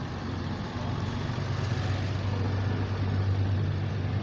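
Motor vehicle engine running nearby: a steady low hum that grows louder about a second in, over outdoor traffic noise.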